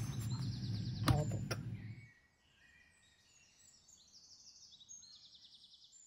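Hands handling a handmade paper journal on a wooden table, with a couple of light taps over a steady low room hum. About two seconds in, this cuts off and faint birdsong takes over, with high chirps and quick trills.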